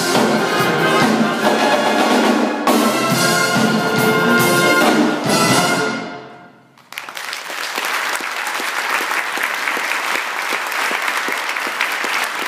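Concert wind band of brass, woodwinds and drum kit playing the loud closing bars of a rock-style piece, its final chord dying away in the hall's reverberation about six seconds in. About a second later the audience breaks into steady applause.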